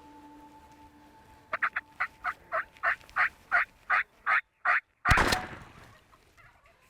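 A turkey calling in a series of about a dozen evenly spaced yelping notes that grow louder, then a single loud shotgun blast about five seconds in that dies away over most of a second.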